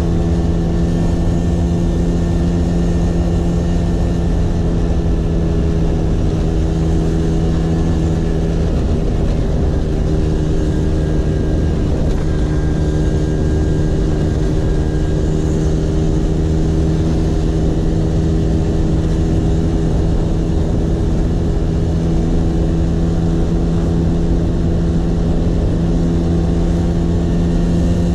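Vespa PX 150's single-cylinder two-stroke engine running through a DRC Victory racing exhaust at a steady, nearly unchanging pitch, shifting slightly about nine seconds in.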